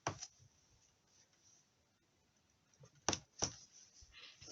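Mostly quiet room with three short light knocks: one at the very start and two close together about three seconds in, as stamping tools are tapped or set down on the craft desk.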